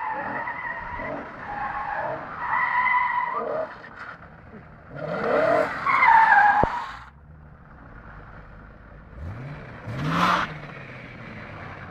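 BMW M3 drifting: its tyres squeal in long, steady howls over an engine revving up and down. The loudest squeal, about six seconds in, cuts off abruptly. After that comes a quieter stretch with one short rising rev near the end.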